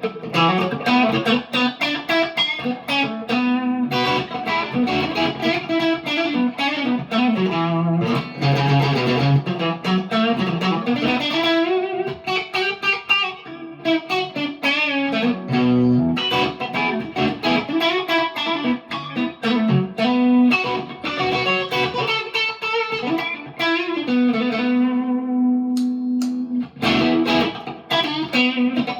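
PRS McCarty 594 Hollowbody II electric guitar played through a Marshall DSL40C amp: a busy run of quick notes and chords, with a note let ring for a couple of seconds late on before the playing picks up again near the end.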